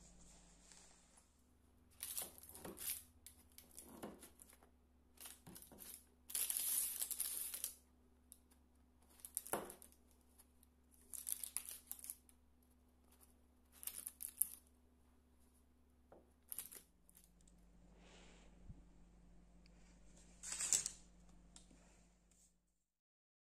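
Large knife sawing through the baked crust of a cheese-and-potato filled flatbread resting on parchment paper, with the paper crinkling: a string of short scraping strokes separated by pauses, with one longer stretch of sawing and a sharp click in the middle.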